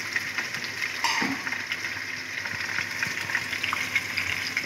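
Marinated chicken pieces sizzling in hot oil in a nonstick wok, a steady hiss full of small crackles.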